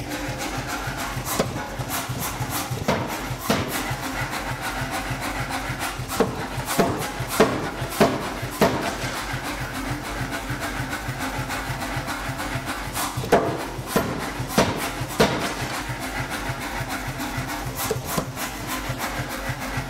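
Mechanical power hammer running with a rapid, steady beat as it works a white-hot niobium billet on its die, with a run of sharper, heavier blows about six seconds in and again a little past the middle.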